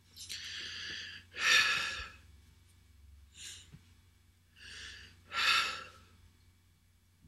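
A person breathing heavily, gasping: a softer breath followed by a louder one, twice, with a faint breath between the pairs, over a steady low hum.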